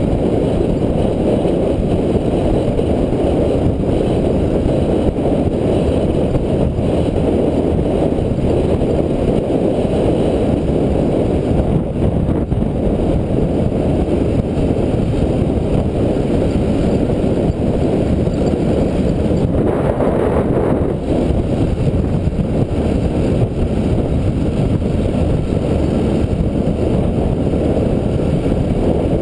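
Motorcycle taxi (boda boda) under way, its engine running steadily beneath heavy wind buffeting on the microphone.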